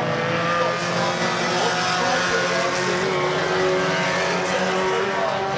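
Several banger-racing cars' engines running at once, a steady mix of engine notes at different pitches as the cars race around the track.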